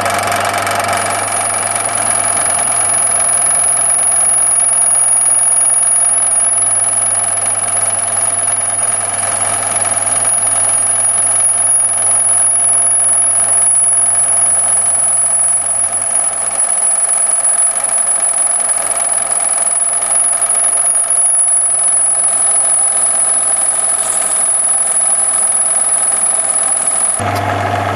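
Metal lathe running steadily while turning a duralumin ball, the cutter swung in an arc on a spherical-turning fixture. A constant motor hum is topped by a thin, steady high-pitched whine.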